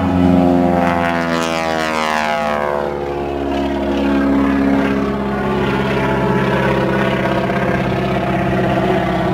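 Propeller engine of an aerobatic airplane passing overhead, its pitch falling sharply as it goes by about a second in, then droning steadily.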